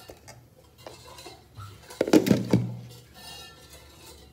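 Stainless steel pot and lid clanking: a few sharp metal knocks with a short ring about halfway through as the lid goes onto the pot, after lighter clicks of the dosa being set inside.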